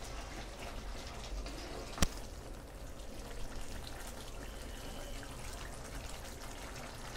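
Keema simmering in its watery tomato and yogurt juices in a kadhai, a soft steady bubbling, while a wooden spatula stirs through it; one sharp knock about two seconds in.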